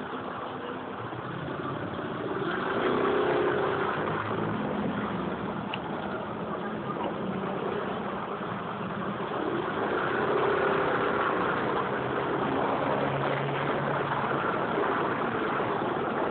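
Modenas Elegan scooter's engine running in slow traffic, revving up as it pulls forward about three seconds in and again about ten seconds in, over the steady engine and road noise of the surrounding cars.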